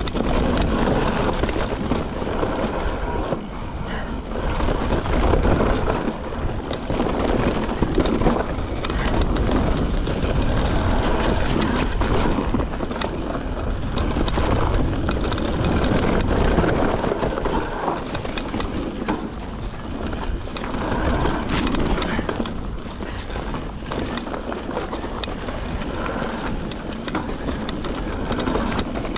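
Mountain bike riding down a woodland trail: tyres rolling over dirt and roots, with many short rattles and clicks from the bike, and wind buffeting the microphone throughout.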